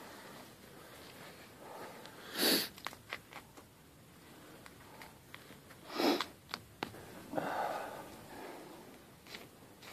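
A person sniffing sharply twice, about two and a half and six seconds in, then a softer, longer breath, with small clicks and rustles of handling in between.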